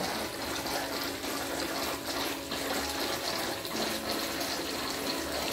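Water pouring from a stone spout into a koi pond, a steady splashing trickle with a faint steady hum underneath. The spout is not running freely; the owner says it needs cleaning out for a stronger flow.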